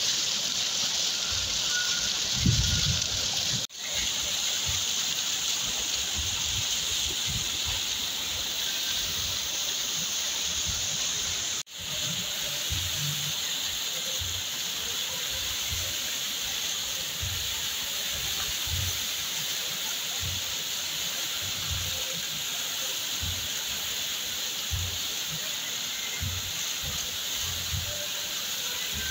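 Waterfall rushing steadily, a constant hiss of falling water; the sound drops out for an instant twice.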